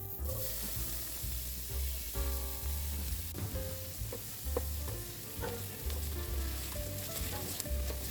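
Food sizzling as it fries in hot oil in a pan, the sizzle switching on suddenly at the start and carrying on steadily, over background music.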